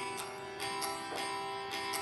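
Acoustic guitar chords from the RockOut Acoustic tablet app, strummed by touch on the screen of a Samsung Galaxy tablet, a few strums a second at an uneven pace, each chord ringing on into the next.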